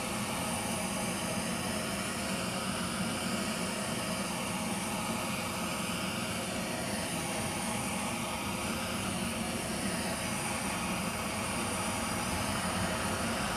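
Torch flame burning steadily with an even hiss, heating an aluminium engine case to expand the bearing bore before a main bearing is pressed in.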